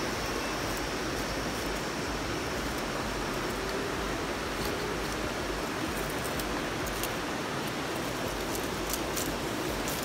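Steady rush of falling water, an even hiss with no breaks.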